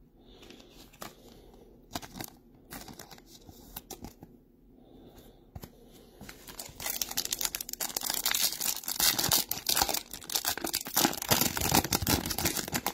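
A Topps Chrome foil card pack being torn open and its wrapper crinkled. After a few light handling clicks, dense crackling starts about seven seconds in and keeps going to the end.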